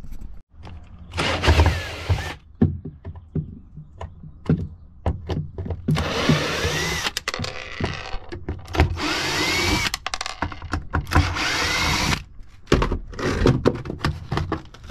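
Power drill-driver running in four short spells, its motor pitch rising and falling, with clicks and knocks of handling between: screws being backed out to remove the old boat speakers.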